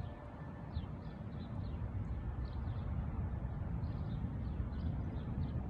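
Small birds chirping repeatedly in short, high, falling notes, a few each second, over a low steady rumble.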